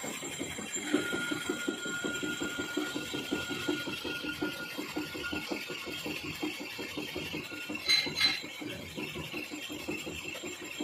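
Metal lathe running and turning a steel bevel pinion blank, with a steady, evenly pulsing machine hum as the tool cuts and throws off chips. Two sharp clicks close together about eight seconds in.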